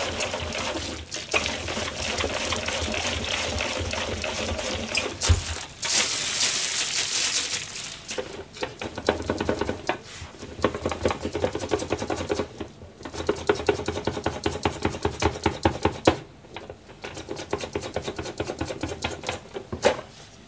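Cabbage being shredded on a handheld slicer (mandoline): fast, rhythmic rasping strokes as the leaf is pushed back and forth across the blade. There is a short hiss about six seconds in.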